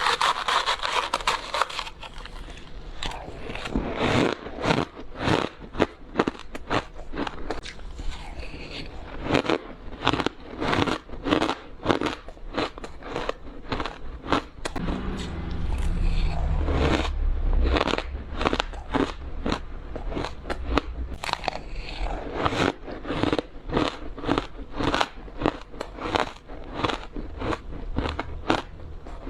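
Close-up bites into frozen matcha ice, a dense run of sharp, powdery crunches and cracks one after another.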